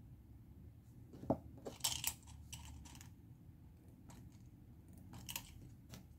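A plastic pen clicks down on a desk, then a correction tape rasps in short scratchy strokes over a paper worksheet. A few more light desk clicks come near the end as the tools are swapped.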